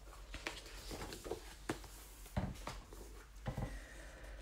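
Faint rustling and a few light taps and clicks as a sheet of watercolour paper is lifted and handled.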